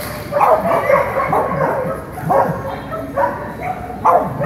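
A dog barking repeatedly, a string of short, loud barks at uneven intervals.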